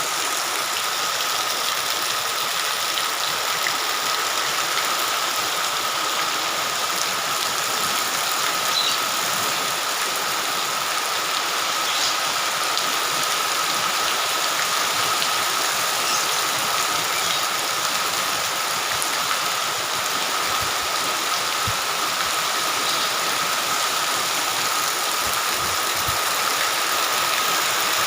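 Heavy rain falling in a steady hiss, with a faint thin high tone held under it.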